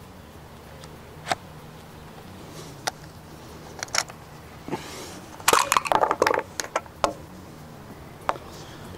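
Scattered sharp clicks and clatters, with a dense run of them between about five and a half and six and a half seconds in.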